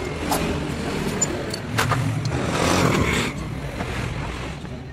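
Small metal parts of a disassembled motorcycle engine clicking and clinking as they are handled, over a steady low rumble of vehicle noise, with a louder stretch of noise around the middle.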